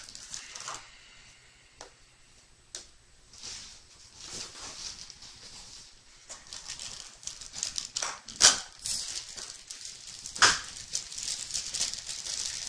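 Small blind-box packaging being handled and opened: crinkling foil and cardboard with scattered clicks, growing busier in the second half, and two sharp, louder sounds about eight and a half and ten and a half seconds in.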